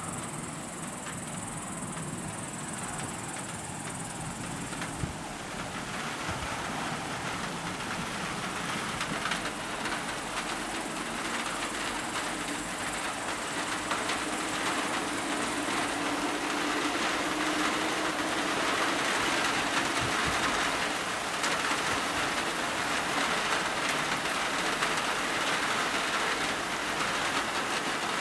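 Heavy rain pouring down steadily, growing gradually louder.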